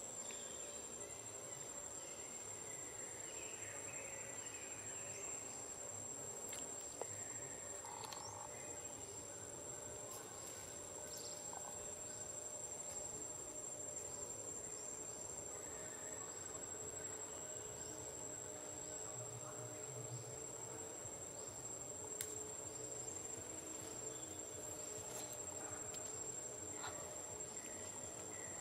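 Insects trilling steadily at one high pitch, with a few faint scattered ticks.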